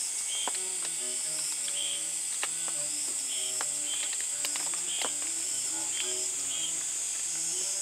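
Steady, high-pitched chorus of insects, mixed with soft background music of short melodic notes and a few faint clicks.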